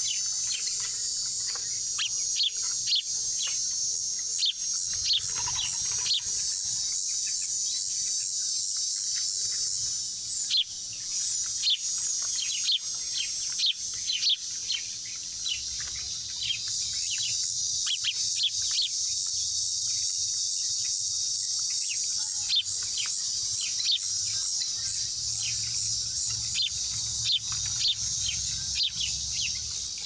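A steady, high insect chorus with many short, sharp, falling bird chirps over it, coming in scattered bursts throughout.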